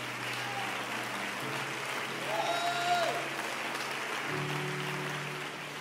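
Congregation applauding and cheering over soft sustained chords from the stage band; the chords change twice. A single voice calls out about two and a half seconds in.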